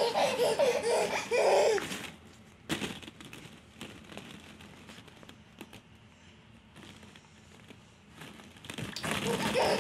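A toddler laughing and vocalizing for about two seconds. Then the soft clicks and rustle of plastic ball-pit balls being handled, and the child's voice comes back near the end.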